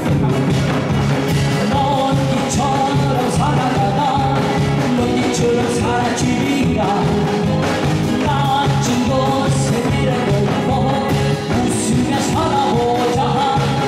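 A male singer performing a song live over a loud backing track with a steady beat.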